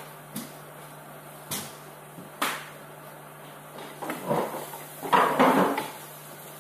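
Kitchen handling noises: a few sharp knocks of things set down on the counter, then two louder bursts of clatter and rustle as dishes and utensils are moved about, over a faint steady low hum.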